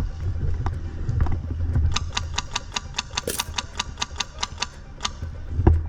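HPA airsoft rifle with a Polarstar F2 engine firing. A few single shots come first, then a quick string of about a dozen shots at roughly five a second from about two seconds in, then a couple more single shots near the end.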